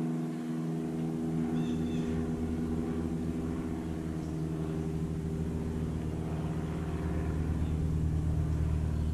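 A steady engine hum, a motor running at a constant speed, its low end growing a little fuller from about a second in.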